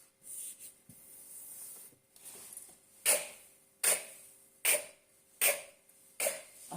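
The phonics sound /k/ ("ck") said sharply five times in a row, about one every 0.8 seconds, as a drill for children to copy.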